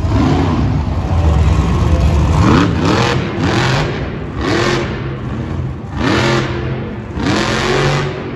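Monster truck's supercharged V8 revving in repeated throttle bursts, the pitch climbing sharply about five times over a steady low rumble.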